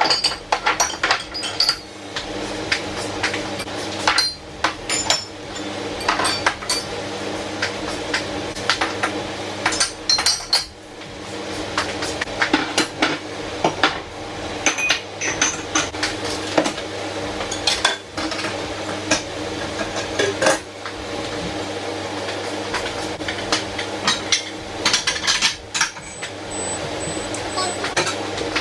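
Crockery clinking and clattering: cups and plates being taken out of kitchen cupboards and set down, many sharp knocks and clinks over a steady low hum.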